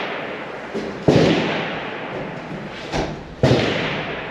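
Precision rifle shots: two loud cracks about two and a half seconds apart, each followed by a long rolling echo that fades slowly. A fainter sharp report comes shortly before each shot.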